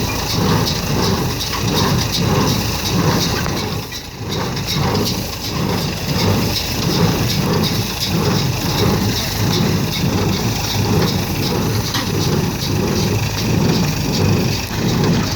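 A tractor-drawn Fahr 360 hay baler at work. The tractor engine runs under load, and the baler's mechanism beats in a steady, even rhythm. The sound drops briefly about four seconds in.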